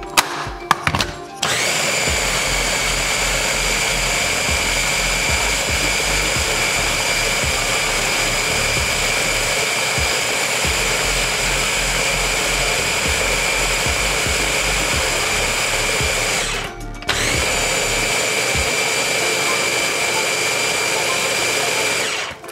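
Ninja chopper's motor blending a thick wet mix of raw chicken livers, eggs and oats: a steady high whine that spins up after a few clicks of the motor head being seated. It cuts out briefly about 17 seconds in, spins up again and stops just before the end.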